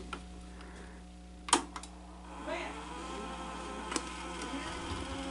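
Sony SL-HF350 Betamax deck: a mechanical click, then its motor whirring up with a rising pitch that then holds steady as the deck starts to rewind. A steady low hum runs underneath.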